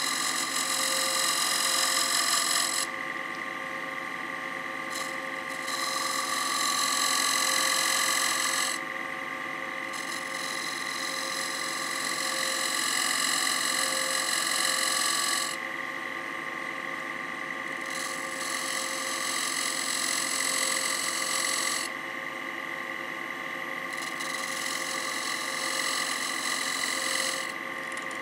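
Wood lathe running with a steady motor whine while a beading tool scores grooves into a spinning maple platter. About five scraping cuts of a few seconds each come one after another, with the lathe's hum alone between them.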